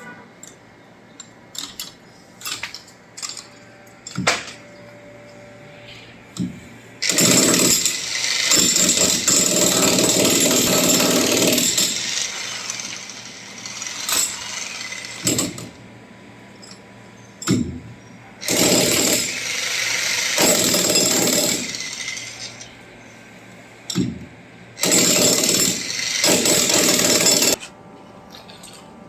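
Electric hammer drill breaking a concrete slab, running in three long bursts of several seconds each, with sharp knocks and clatter between the bursts.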